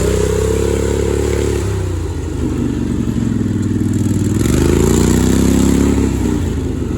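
ATV engine revving up and down twice as it accelerates and backs off on a trail ride.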